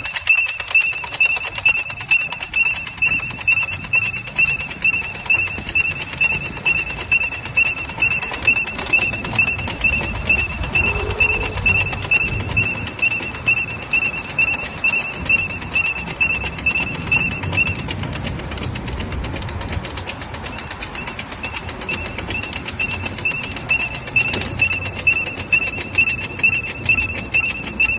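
Lime bike's alarm beeping: a high-pitched beep repeating about three times a second. It pauses for about five seconds shortly before two-thirds of the way through, then starts again.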